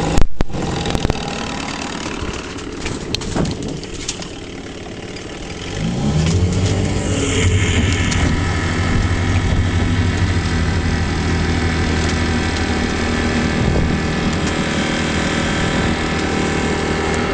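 1974 Johnson 6 hp two-stroke outboard motor running, with a sharp knock right at the start. About six seconds in the engine revs up as the throttle opens, then runs steady at speed with the boat under way.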